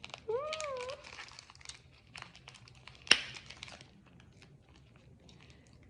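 Plastic snack packaging crinkling and crackling as it is handled, with one sharp crackle about three seconds in, the loudest sound; it dies down over the last two seconds. A short hummed "mm" comes near the start.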